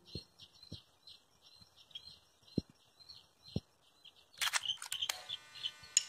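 Faint natural ambience: a high chirp repeated about four times a second, with a few soft low thumps. From about four and a half seconds in comes a louder spell of sharp clicking chirps.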